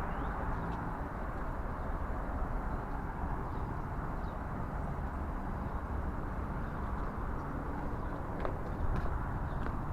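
Outdoor ambience: a steady low background rumble with a few faint, short, high chirps and ticks scattered through it.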